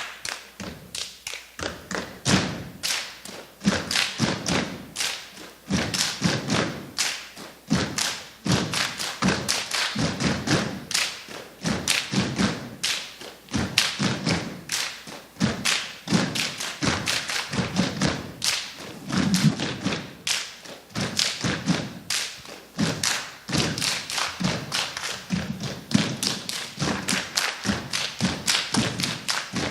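Step team stepping: rapid, rhythmic stomps and body percussion hit together, several strikes a second in a driving, accented pattern.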